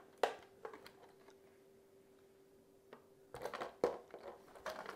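Faint handling noises from the plastic RC monster truck being turned about by hand: a few light clicks, then a busier run of clicks and rustles in the last couple of seconds, over a faint steady hum.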